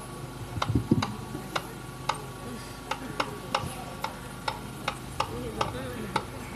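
Dholak tapped lightly in a slow, even beat of about two sharp strokes a second, with one deeper bass stroke about a second in.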